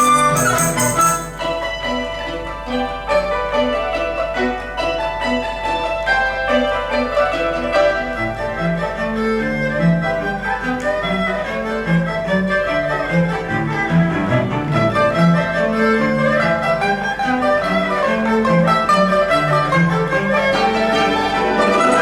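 Chinese chamber ensemble of erhu, dizi, pipa, yangqin, zhongruan and cello playing, bowed strings to the fore, over a moving line of low bass notes that gets busier about eight seconds in.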